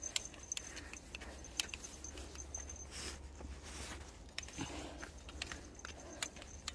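Footsteps on a dry, leaf-strewn dirt trail, faint, with light patter and irregular sharp clicks scattered throughout.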